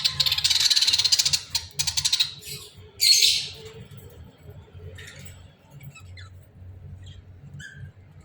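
Budgerigars chattering rapidly for about two seconds, then a loud harsh squawk about three seconds in, followed by scattered faint chirps.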